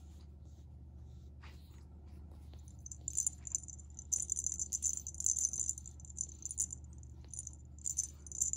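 Small jingle bell on a feather wand cat toy jingling in quick, irregular shakes as a cat bats at the toy, starting about three seconds in.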